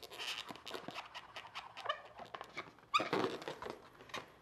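Latex twisting balloons squeaking and rubbing as a Sharpie marker draws eyes on them and fingers grip them: soft scratchy rubbing with two short squeaks, about two and three seconds in, the second the loudest.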